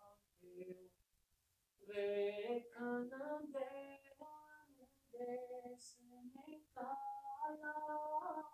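An unaccompanied solo voice sings a Punjabi devotional verse in long, drawn-out notes. It pauses for breath about a second in, then holds long notes near the end.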